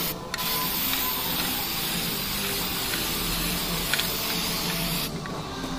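Aerosol spray can of primer paint hissing: a brief burst, then one long steady spray of about five seconds that stops near the end.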